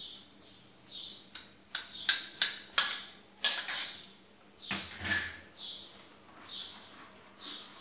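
A spoon tapping and scraping against a bowl and the rim of a cooking pan while paste is knocked off into the pudding: a quick run of about seven sharp clinks over two seconds, then a duller knock about five seconds in.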